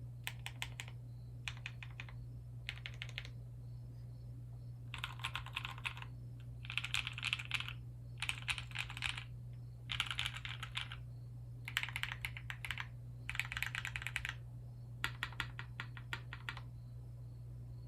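Custom Kei HHKB-layout mechanical keyboard being typed on in bursts of rapid keystrokes, with Krytox 205g0-lubed, filmed Cow switches in an aluminum half plate under GMK keycaps. A few short runs of keystrokes come first, then longer, louder runs of about a second each with short pauses between, over a steady low hum.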